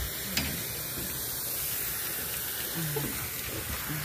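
Steady hiss, with one sharp click about half a second in.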